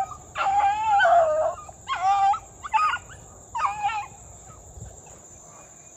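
Beagles baying while running a rabbit: four bouts of drawn-out, wavering calls in the first four seconds, the first the longest, after which the hounds fall quiet.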